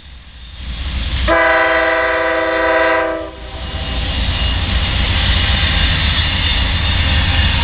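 Freight diesel locomotives' air horn sounds one long chord of several tones about a second in, lasting about two seconds, over the rumble of the approaching train. After the horn the locomotives pass close by, their engine and rolling noise growing louder and staying steady.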